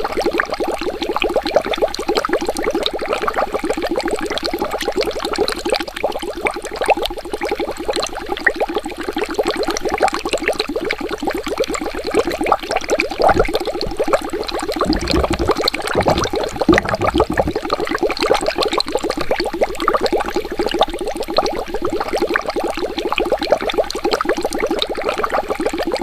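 Water bubbling steadily, a dense, unbroken stream of small bubbles popping, with a few deeper, low gurgles a little past halfway.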